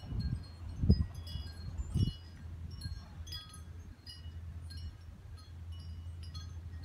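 Scattered short, high ringing notes at several different pitches, over a steady low rumble of wind on the microphone with gusts about one and two seconds in.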